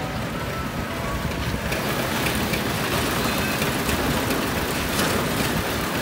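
Steady rumble and hiss of construction machinery running at a concrete roof pour, filling out a little about two seconds in.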